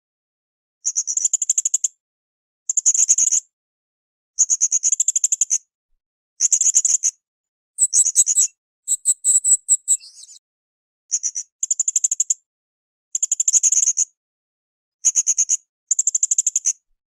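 Blue-crowned hanging parrot (srindit) calling in short bursts of rapid, very high-pitched trilled notes, repeated about every two seconds, with a harsher, broken phrase about halfway through.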